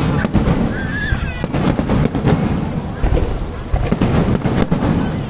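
Aerial fireworks bursting in rapid succession: many sharp bangs over a continuous deep rumble of booms.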